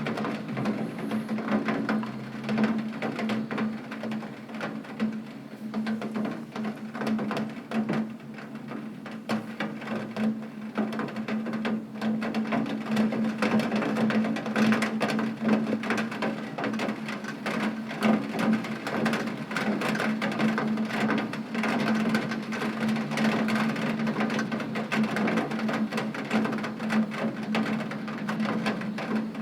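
Rain drumming on a tin roof: a dense, irregular patter of drops striking the metal, with a steady low hum underneath.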